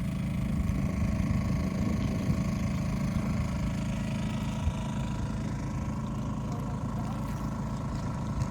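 A steady low engine hum, running evenly without change in speed.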